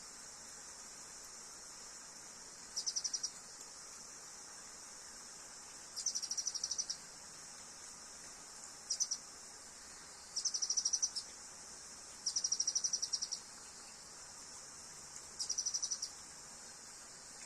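Steady high-pitched drone of an insect chorus. Six short, rapid pulsing trills sound over it at uneven intervals of a few seconds.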